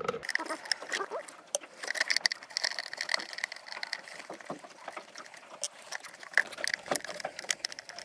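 Irregular clicks, knocks and light rattles of hands opening and working at a boat's engine compartment panel.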